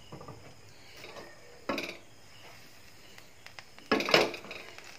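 Metal frying pan knocking and shifting on a gas stove's grate as it is tilted to spread oil across it: two short clatters, the second one louder, a couple of seconds apart.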